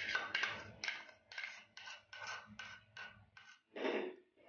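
A spoon scraping thick yogurt out of a small bowl into a glass bowl, in short, quick strokes about two or three a second, with a longer, louder scrape near the end.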